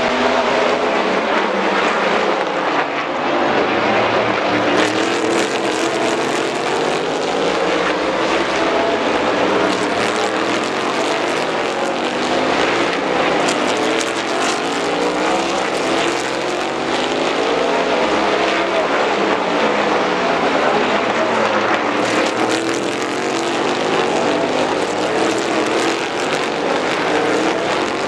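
Race car engines running hard as a stream of cars laps through a corner: a continuous loud engine sound whose pitch rises and falls over and over as the cars brake, downshift and accelerate past.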